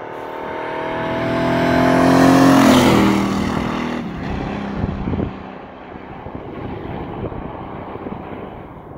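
Pickup truck accelerating toward and past the microphone at speed. Its engine note climbs and grows louder, drops sharply in pitch as it passes about three seconds in, then fades away down the road.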